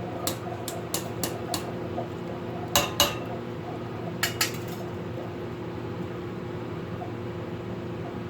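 Metal utensil clinking against a cooking pot: about five light taps in quick succession, then two louder knocks and, a second later, two more. A steady hum runs underneath.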